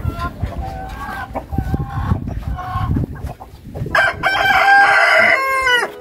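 Rhode Island Red chickens clucking in short calls, then a rooster crows once about four seconds in, a long loud cock-a-doodle-doo of nearly two seconds that falls in pitch at the end.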